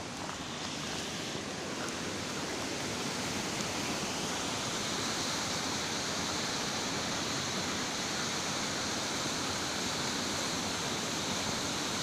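A river in flood over its banks, its water rushing in a steady roar that grows a little louder after the first few seconds.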